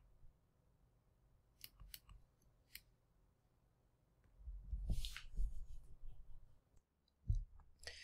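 Faint clicks of a KY-040 rotary encoder's shaft push-button switch being pressed and released, a few quick clicks about two seconds in. From about four and a half seconds in there is a couple of seconds of low rumble and rustle, as from hands handling the module, and one more click near the end.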